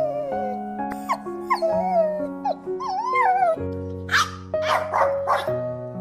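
A dog whining and yipping in short wavering calls, then barking several times in quick succession about four seconds in, over background music with steady sustained notes.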